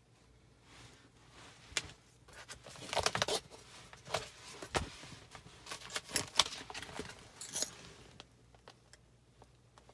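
Handling noise from a black pin-trading bag being opened and its pages moved: a run of sharp clicks and rustles from about two seconds in to about eight seconds, loudest around three and six seconds.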